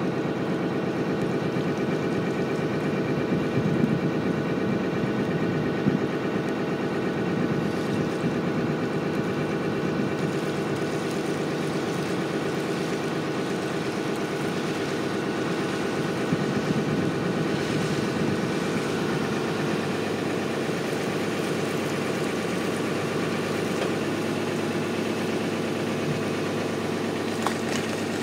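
A boat's engine running steadily, heard from on board, a constant even drone.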